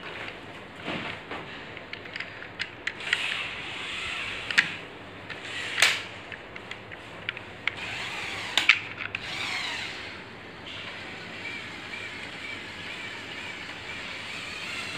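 Electric motors of a Lego Technic Power Functions remote-controlled tipper lorry whining, with scattered sharp clicks and knocks from the plastic parts. From about eleven seconds in, a steady motor whine runs as the tipper bed is raised.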